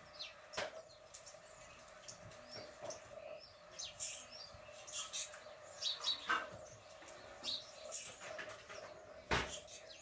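Small birds chirping and tweeting from a bird video played through a tablet's small speaker, over a steady hum. Two sharp knocks cut across it, one early and a louder one near the end.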